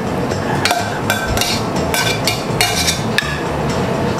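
Metal tongs clinking and scraping against a stainless-steel sauté pan as green beans are pulled out onto a serving platter: about half a dozen sharp metallic knocks, several with a brief ringing tone.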